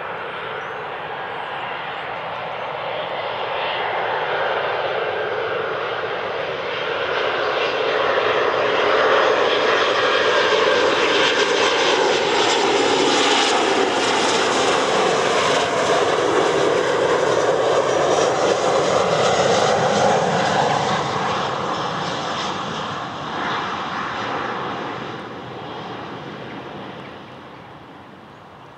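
Twin turbofans of an Embraer E-Jet airliner on final approach, growing louder as it comes in and passes, their whine sweeping down in pitch as it goes by. The sound then fades as the jet descends toward touchdown.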